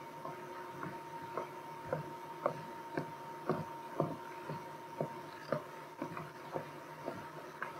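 Footsteps of shoes on a hardwood gym floor, sharp clicks at about two steps a second, over a faint steady high hum.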